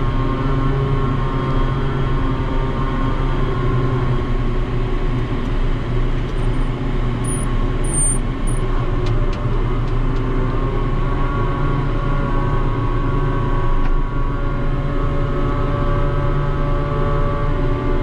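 Ship's deck crane machinery droning steadily from the operator's cab, a constant low hum with a higher whine that grows stronger in the second half.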